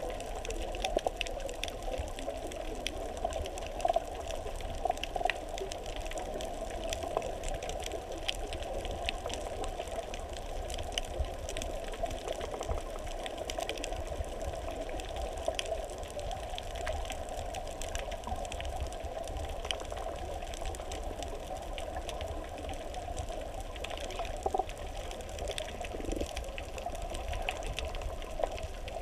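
Underwater sound picked up by a GoPro inside its waterproof housing: a steady, muffled rush of water with scattered faint clicks and crackles.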